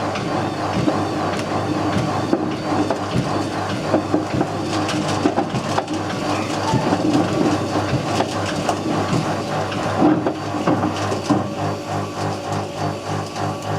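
Whirlpool WWDC 7210/1 washing machine drum turning with hard objects tumbling and banging around inside it, a constant clatter of knocks and crunches. After about ten seconds the knocks settle into a more regular beat.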